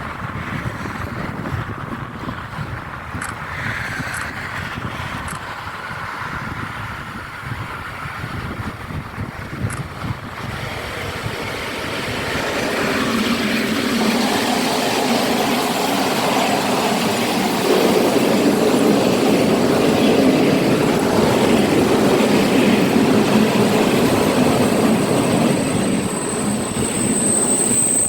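A train approaching and running past, its rumble growing steadily louder from about halfway through. A high, steady whine joins near the end.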